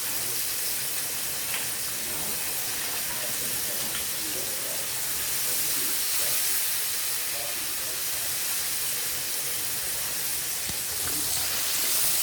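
Floured chicken tenders deep-frying in hot oil: a steady sizzle with a few faint pops.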